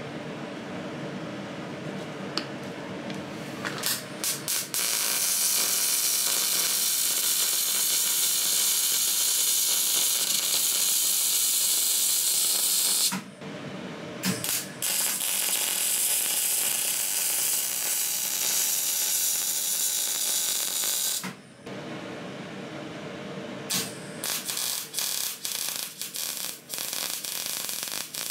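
MIG welder arc running beads on a steel exhaust straight pipe: a steady crackling hiss in long runs of several seconds, broken by short stops, then short stop-start bursts near the end as the seam is tacked and finished.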